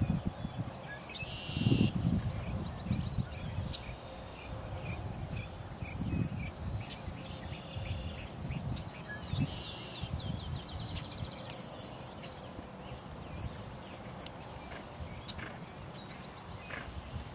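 Outdoor field ambience: a steady high insect buzz that grows louder through the middle, with short repeated bird chirps and irregular low dull thumps, the loudest about two seconds in.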